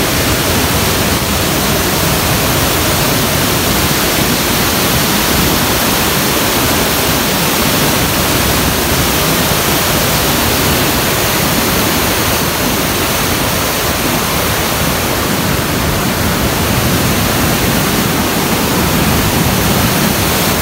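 Waterfall cascading over rock ledges into a churning, foaming pool: a loud, steady rush of water.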